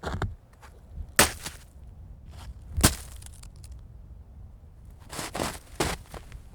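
Chunks of frozen, crusted snow thrown and landing, each one cracking and breaking apart: a sharp impact about a second in, another near the three-second mark, then a quicker cluster of several smaller crunches near the end.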